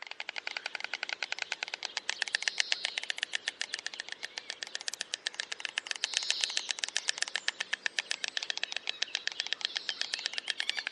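Stork clattering its bill: a long, fast, even run of hard wooden-sounding clacks, about ten a second, rising and falling a little in loudness.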